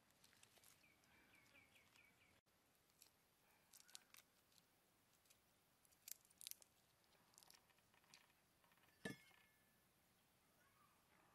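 Faint outdoor ambience. A bird gives a quick run of short falling chirps about a second in, and faint scattered clicks and taps follow, with one sharper click about nine seconds in that rings briefly.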